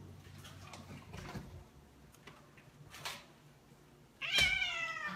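A domestic cat gives one long meow about four seconds in, dropping in pitch as it trails off, after a few seconds of faint small sounds.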